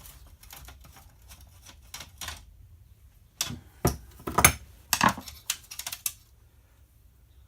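Pliers and small metal parts clicking and clinking as a stubborn window-frame screw and nut are worked loose by hand. Light taps at first, then a cluster of sharp metallic clicks from about three and a half to six seconds in.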